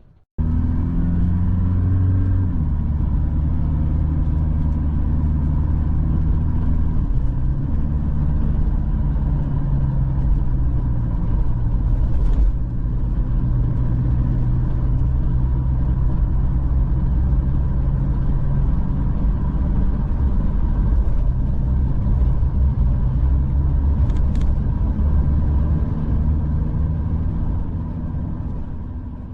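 A motor vehicle's engine running steadily, with a low drone whose pitch shifts a few times in the first seconds.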